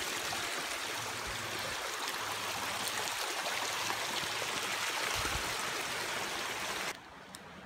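Shallow woodland stream running over rocks and mossy stones: a steady rush of water that cuts off suddenly near the end.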